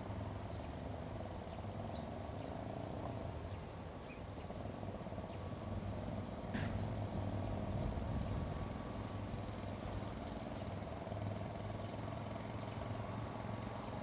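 A steady low hum, with one short high click about six and a half seconds in.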